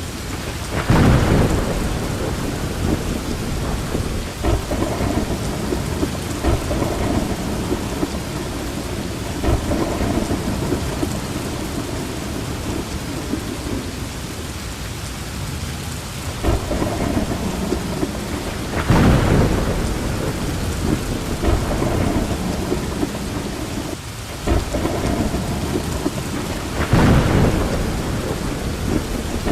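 Steady rain falling in a thunderstorm, with rolling thunder. The thunder swells loudest about a second in, again about two-thirds of the way through, and once more near the end.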